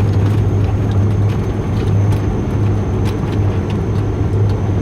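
Dash 8 Q400 turboprop on final approach, heard from inside the aircraft: the propellers' steady low drone over rushing airflow, with a few faint ticks and rattles.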